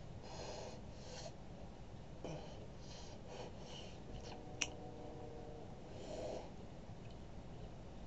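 Faint breaths and soft rustles as a person signs, with one sharp click about halfway through, over steady low room noise.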